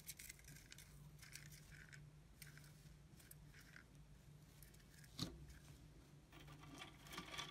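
Very faint scattered scratchy rustles and nibbling of gerbils in shredded-paper bedding at a cardboard-tube chew ball, over a low steady hum; one slightly louder click about five seconds in.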